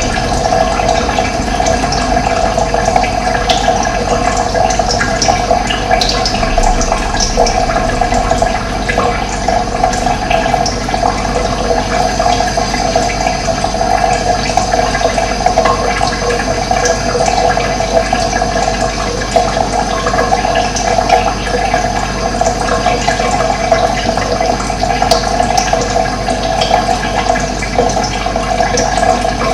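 Steady rush of running water, with birds chirping now and then over it.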